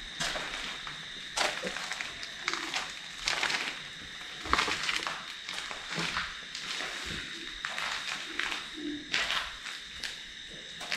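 Footsteps crunching irregularly over rubble and grit on a concrete floor, over a faint steady high-pitched tone.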